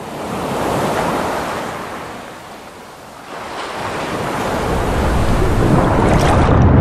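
Ocean waves washing and surging, swelling about a second in, easing off, then building again with a deepening rumble toward the end.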